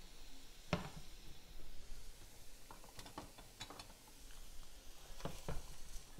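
Kitchen handling noises: about six sharp clicks and knocks of utensils and cookware, the loudest about a second in. Under them is a faint steady hiss from the sautéing onions.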